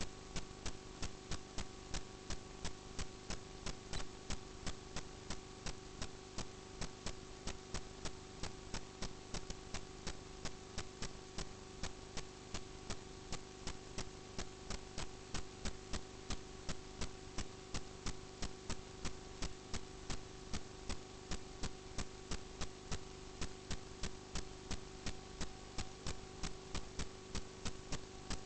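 Steady electrical hum with a sharp, evenly spaced tick nearly three times a second.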